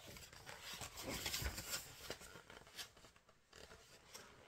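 Faint rustling and rubbing of a rolled paper poster being handled and unrolled, with small crackles, louder in the first half and dying down near the end.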